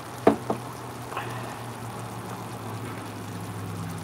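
Chicken biryani masala simmering in a steel pot on a gas stove, under a low steady hum. Two sharp clicks come about a quarter and half a second in, and a lighter one about a second in.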